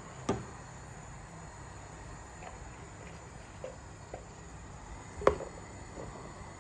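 Kitchen items being handled: a soft knock just after the start, two small ticks in the middle and a sharp click about five seconds in, over a faint steady hiss.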